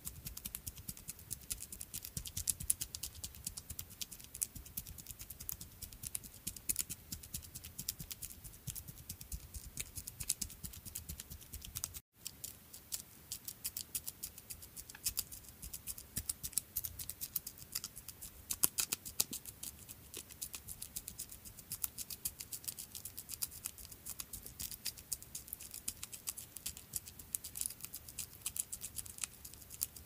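Sound effect of a small creature's footsteps: rapid, light, clicky pattering steps scurrying continuously, with a brief break about twelve seconds in.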